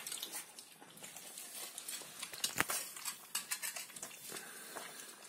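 Two young puppies lapping milk from a metal bowl: a run of quick wet licking clicks and slurps, with one louder click about two and a half seconds in.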